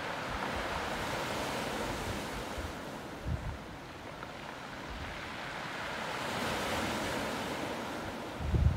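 Small sea waves washing onto a pebble beach, a steady surf hiss that swells and eases. Two short low rumbles of wind on the microphone, one about a third of the way in and one at the very end.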